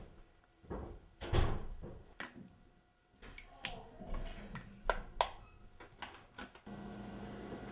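A series of irregular knocks and sharp clicks, the loudest thump about a second and a half in, followed near the end by a steady low hum of room noise.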